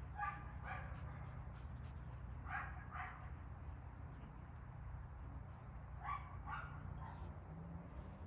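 Working dog barking in doubled barks, three pairs a few seconds apart with a weaker single bark after the last, over a steady low hum.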